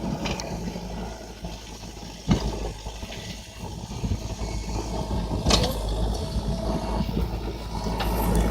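An engine running steadily with a low hum, growing louder toward the end, with a few sharp knocks over it.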